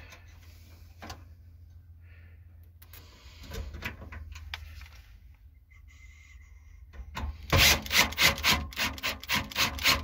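Screwdriver driving and tightening screws into the water heater's gas valve bracket: a few faint scrapes, then a loud quick run of rasping strokes, about four a second, in the last three seconds.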